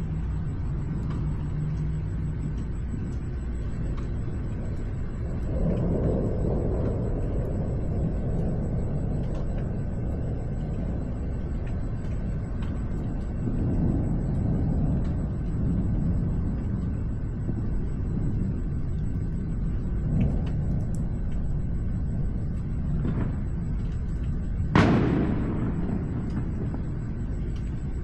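Thunder rolling in long low rumbles that swell and fade several times, then a single sharp thunderclap near the end that dies away over a second or two.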